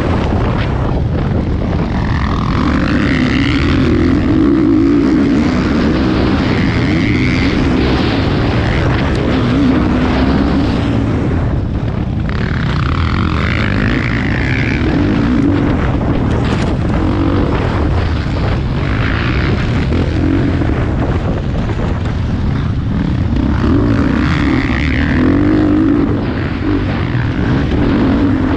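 Motocross bike engine running hard at race pace, its pitch rising and falling over and over as the throttle is opened and shut.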